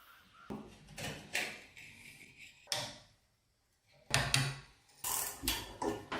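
Metal parts of a rusty airgun being handled and worked on: a series of separate clicks, knocks and scraping rasps, louder in the second half after a short silent gap.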